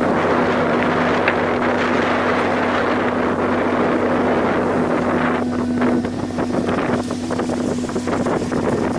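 Wind buffeting the microphone over the rush and splash of rough seawater along a sailing yacht's hull. After about halfway the steady rush gives way to irregular splashes.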